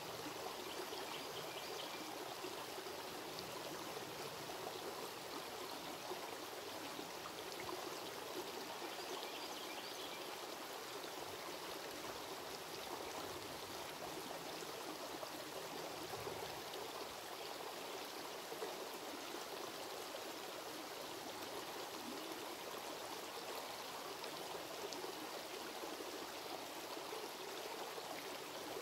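Shallow rocky creek flowing, a steady, even rush of running water.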